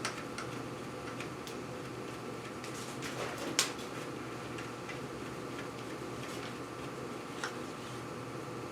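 Scattered light clicks and ticks of a chainsaw's metal bar, chain and parts being handled and fitted together, with one sharper click about three and a half seconds in, over a steady faint hum.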